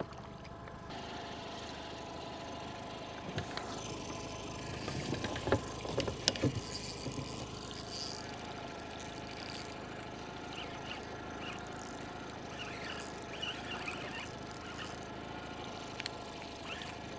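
A steady mechanical hum, such as a boat motor running, with a few sharp clicks and knocks about four to seven seconds in.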